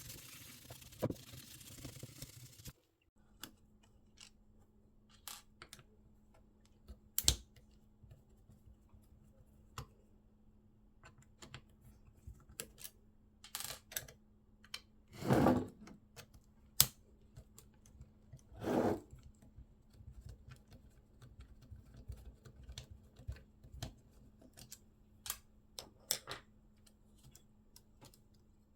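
Scattered light clicks and taps of small plastic parts being handled, with two longer half-second noisy sounds near the middle and a faint steady hum underneath. A hiss at the start cuts off abruptly after about three seconds.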